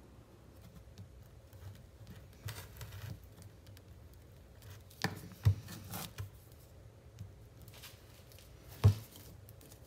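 Rubber mallet striking the spine of a small fixed-blade neck knife, driving it through a cable of three copper wires laid on a wooden board: dull knocks, three in quick succession about halfway through and one more near the end.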